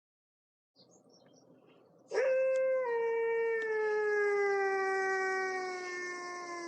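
Monster roar sound effect: one long, howl-like call that starts abruptly about two seconds in and slides slowly down in pitch for about five seconds, dropping away sharply at the end, over a hissy high layer.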